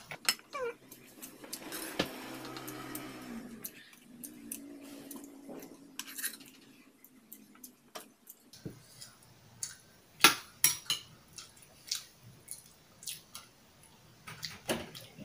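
Metal spoon clinking and scraping against a frying pan and a small glass bowl during a meal, with a softer drawn-out noise about a second in and a run of sharp clinks in the second half.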